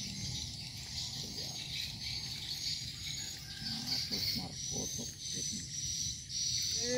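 Outdoor pond-side ambience: a steady high chorus of insects over a low rumble of wind on the microphone, with a few faint short animal calls a little past the middle.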